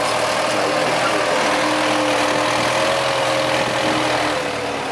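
Kubota M9540 tractor's four-cylinder diesel engine running steadily as the tractor drives and grades loose dirt, with a held tone over the engine noise. It eases off slightly near the end.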